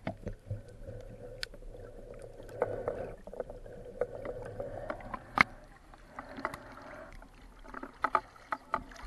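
Muffled underwater noise picked up through an action camera's waterproof housing as a swimmer moves, with sharp clicks and knocks throughout. The loudest knock comes about five seconds in, and a quick run of clicks comes near the end.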